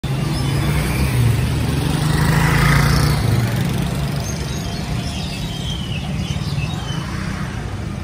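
A motor vehicle passes, its engine hum loudest in the first few seconds and then fading, while small birds chirp and twitter in the trees, clearer in the second half.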